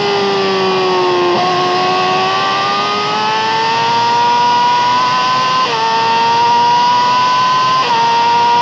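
Yamaha R6 (RJ15) 600 cc inline-four with an Akrapovic exhaust, heard onboard at high revs. Its pitch falls as the throttle is eased for about a second and a half, then the engine pulls hard, rising steadily. It upshifts twice, with quick small dips in pitch just past halfway and near the end.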